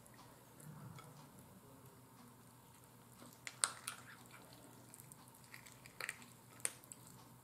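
Quiet eating sounds: chewing baked chicken and pulling it apart by hand, with a scatter of small sharp wet clicks, loudest about three and a half seconds in and again around six seconds in.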